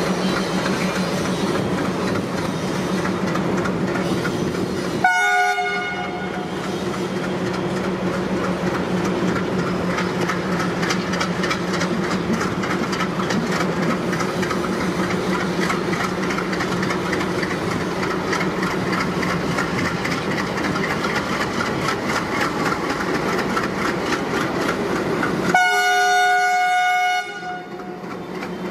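Several ALCO WDG3A diesel locomotives pulling a heavy freight train past, their engines giving a steady drone over the clatter of wheels on the rails. An air horn sounds briefly about five seconds in and again for longer near the end.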